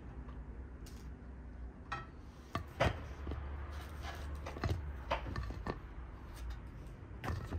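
Scattered clicks and knocks of kitchenware being handled during food preparation, the loudest about three seconds in, over a low steady rumble.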